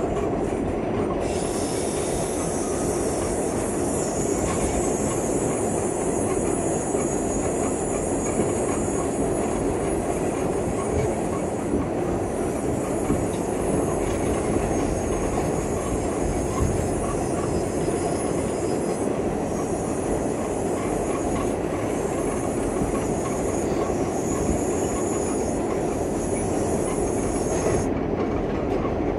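R46 subway car running at speed, heard from inside: a steady rumble of wheels on rail with a thin, high whine above it that comes in about a second in and drops out near the end.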